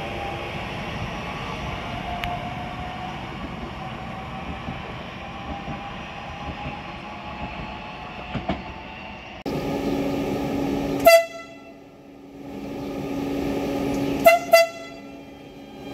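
Trenitalia Jazz electric train pulling away, its running sound fading steadily. Then an arriving Trenitalia Rock double-deck train hums in and sounds short blasts on its horn: one about two-thirds of the way through and two quick ones near the end.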